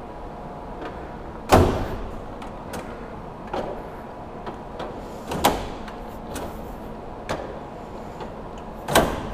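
Steady shop hum with a few faint steady tones, broken by a handful of single knocks and thumps about two seconds apart, the loudest about a second and a half in.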